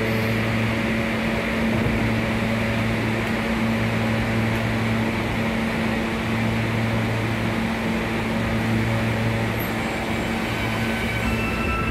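New York City subway train noise: a steady mechanical drone with a constant low hum and a lower hum that cuts in and out every couple of seconds. Near the end, thin high squeal tones set in, the start of train wheels squealing.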